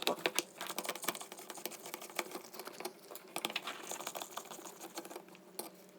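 Rapid, irregular small clicks and taps from handling the small plastic and metal parts and wires of a mini sumo robot during disassembly.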